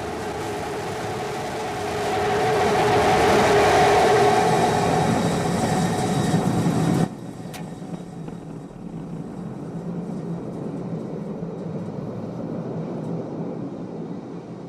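Starship prototype's Raptor rocket engines firing for the landing burn, a loud, rough rumble that swells over the first few seconds. About seven seconds in it drops suddenly to a quieter, steady rumble.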